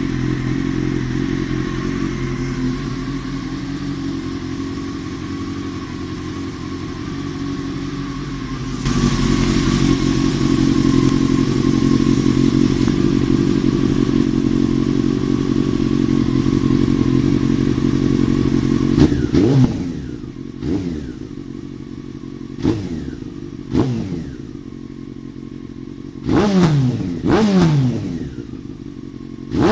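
Honda CBR954RR inline-four engine running through a Dominator aftermarket exhaust. It idles steadily and gets louder about a third of the way in. In the last ten seconds it gives a series of short throttle blips, each revving up sharply and falling back to idle.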